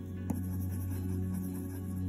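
Background music of long, held low tones, with one short click about a third of a second in.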